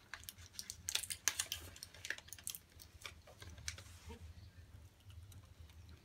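Tablets being pressed out of a plastic-and-foil blister pack: a quick run of crackling clicks over the first two and a half seconds, a few more after that, then it goes quieter.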